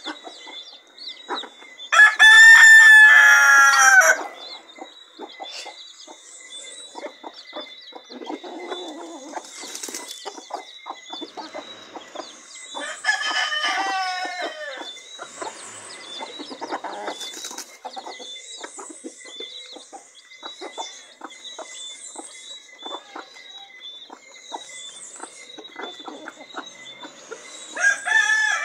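Rooster crowing three times, each crow a long curving call of about two seconds: loudest about two seconds in, weaker around the middle, and again near the end. Between the crows, chickens cluck and peck grain off paving stones in short taps, with faint high peeps.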